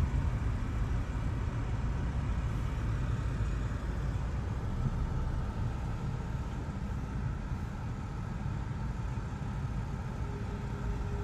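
Steady low engine rumble with a faint steady whine above it.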